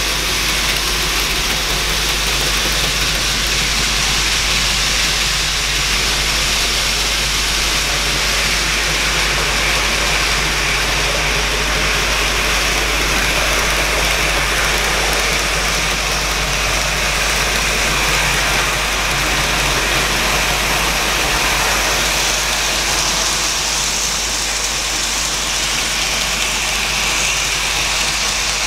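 N gauge model freight train of container wagons running on the track: a steady whir of its small motor and wheels rolling on the rails over a constant low hum. It grows brighter in the last few seconds as the train comes close.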